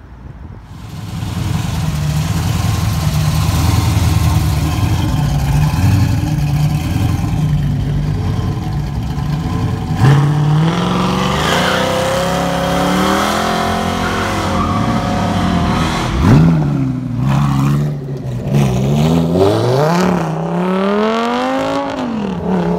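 Performance car engines leaving one after another. A deep, lumpy engine rumble gives way, about ten seconds in, to a hard acceleration rising in pitch as a 1960s Chevy II Nova pulls away. There is a sharp crack a few seconds later, then a Lamborghini's V10 revs several times near the end, its pitch climbing and dropping between revs.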